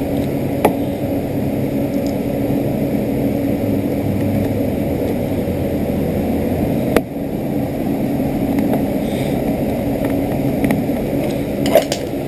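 A steady mechanical hum with a few sharp clicks: one about a second in, one midway and one near the end.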